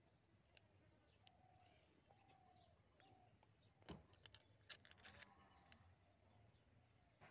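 Near silence with faint bird calls. About four seconds in comes a sharp click, then a quick run of small clicks and taps from a metal rod being handled against a homemade wooden rubber-band gun.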